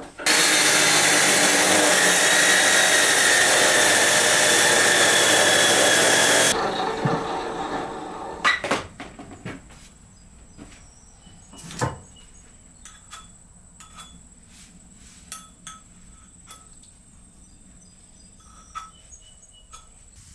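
A power tool runs at full speed for about six seconds, then cuts off and spins down. Scattered light clicks and knocks follow.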